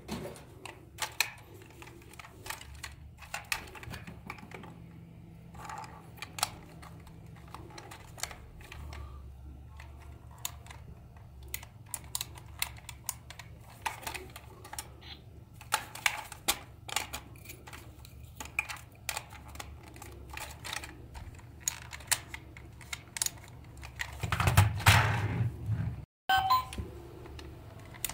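A hard plastic children's toy being handled: scattered light clicks and taps of its plastic shell and buttons, with a louder scraping stretch of about a second near the end.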